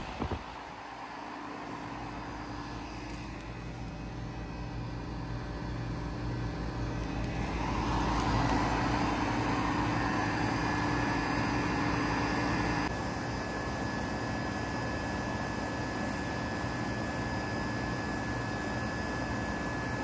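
2004 Goodman PHK036 3-ton packaged heat pump running in cooling mode: a steady hum from the compressor with the rush of air from its condenser fan. The sound swells a little about eight seconds in and eases off slightly near thirteen seconds.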